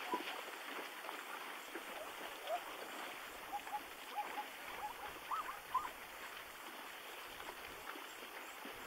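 Short, clear chirping calls, many of them in quick pairs and clustered in the middle, over a steady outdoor hiss.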